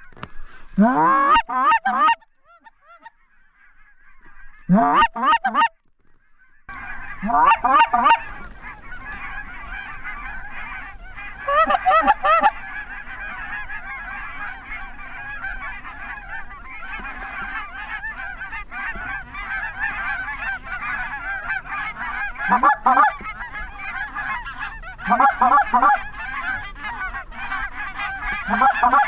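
A large flock of geese honking. It begins as a few loud, close bursts of honks with near-silent gaps between them. From a few seconds in it becomes continuous chatter from many birds, with further loud bursts standing out every few seconds.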